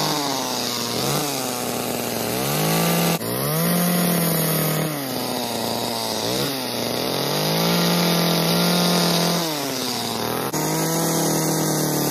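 Chainsaw carving wood with the tip of its bar, the engine running at high speed and dipping then climbing back several times as the cuts load it and the throttle is eased and opened again.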